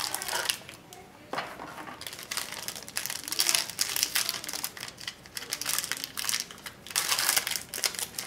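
Plastic wrapping on Panini football cards crinkling and tearing as it is opened by hand, in irregular rustling bursts.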